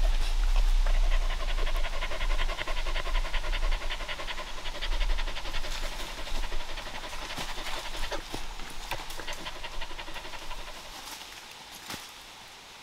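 A dog panting rapidly and evenly, close by, growing fainter over the second half and dying away near the end.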